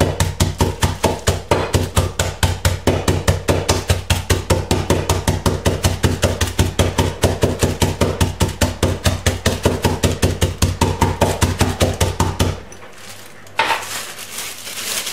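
Hazelnuts in a plastic bag being pounded with a drinking glass on a stone countertop to crush them into coarse pieces: rapid, steady thuds, several a second. The pounding stops a couple of seconds before the end, followed by a brief rustle of the plastic bag being lifted.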